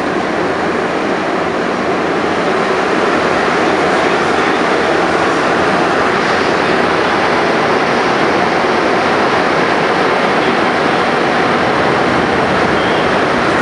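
Montreal MR-73 rubber-tyred metro car running at speed through a tunnel, heard inside the car as a loud, steady rush of running noise. It grows slightly louder over the first few seconds, then holds steady.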